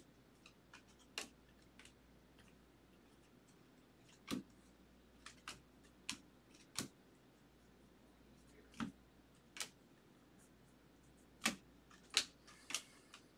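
Stiff chrome baseball trading cards being flipped through by hand, each card slid off the stack with a short, sharp click, irregularly about once a second, the loudest clicks near the end.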